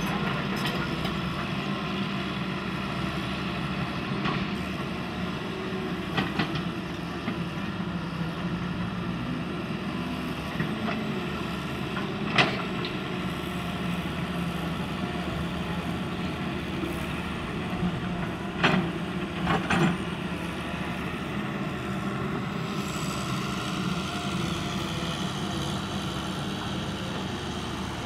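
Hitachi hydraulic crawler excavator's diesel engine running steadily under load as the machine digs and slews, with a few sharp knocks, the loudest about twelve seconds in and a short cluster around eighteen to twenty seconds.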